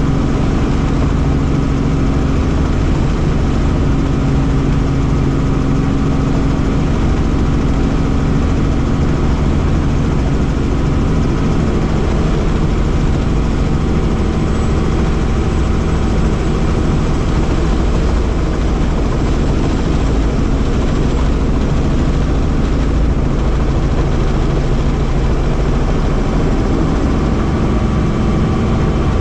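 Helicopter engine and rotor running, a loud, even noise carrying several steady tones; a low hum in it weakens about twelve seconds in.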